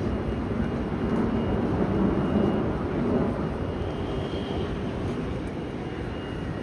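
Low rumble of passing traffic in a city street, swelling about two seconds in and then easing off.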